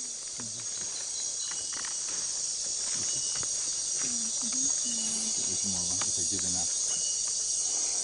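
Night chorus of rainforest insects: a steady high-pitched shrill, with short chirps recurring every second or two.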